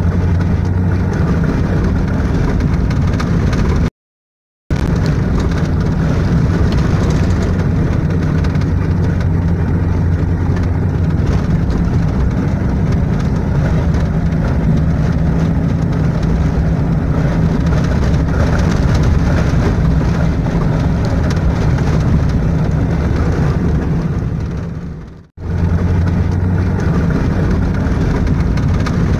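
Car driving on a dirt road, heard from inside the cabin: the engine hums steadily under the road rumble. The sound cuts out briefly about four seconds in and again near the end.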